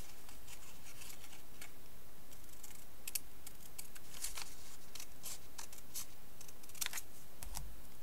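Scissors snipping through folded origami paper: a run of short, irregular snips, a few of them sharper than the rest.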